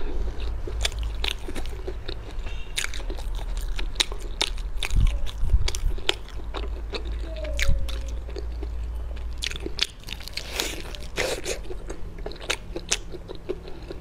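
Crunching and chewing of a deep-fried chicken drumstick's crispy batter coating, with many sharp crackles of the crust between softer chewing.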